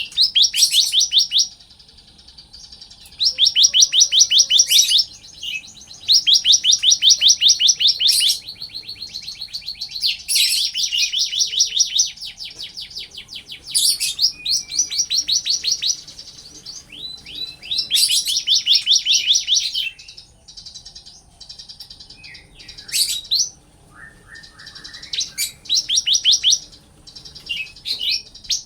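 Bar-winged prinia (ciblek) singing energetically: loud, fast trills of rapidly repeated high notes, each burst lasting one to two seconds, broken by short gaps and scattered single chirps.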